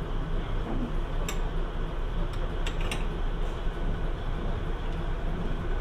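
Diesel railcars idling at a standstill: a steady low engine rumble. A few sharp metallic clicks sound over it, one about a second in and three more a little before the halfway point.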